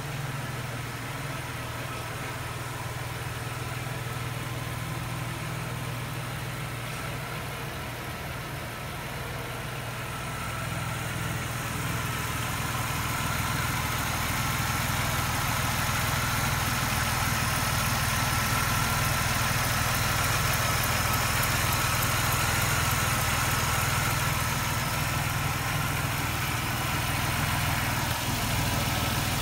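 1995 Pontiac Firebird's 3.4-litre V6 idling steadily and evenly after being warmed up, becoming louder about ten seconds in.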